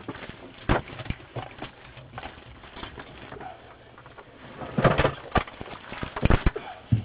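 Irregular knocks and thumps, a few clustered about five and six seconds in.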